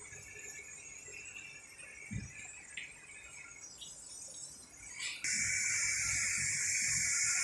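A few soft knocks as the thin film oven's door is shut. About five seconds in, the oven's stirrer motor switches on and runs with a steady hissing whine.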